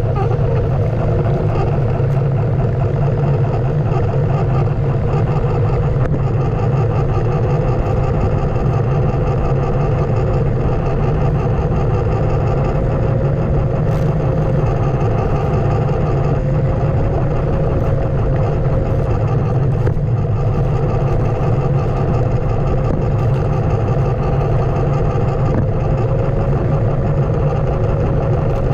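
Onewheel electric board riding along a paved street: its hub motor gives a steady whine over a low rolling rumble.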